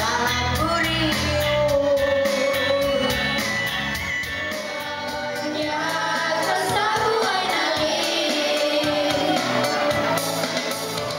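A song: singing into microphones over an instrumental backing track.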